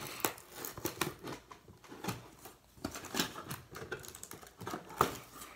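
Fingers pulling and picking at a cardboard box's flaps and packing tape, making irregular scratchy clicks and crackles, with a sharper click about five seconds in.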